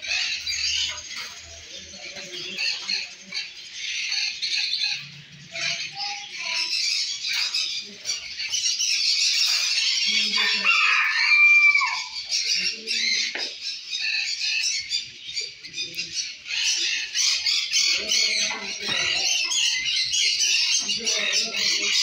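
A dense chorus of many caged birds chirping and twittering without pause, with one louder whistled call that dips and rises about halfway through.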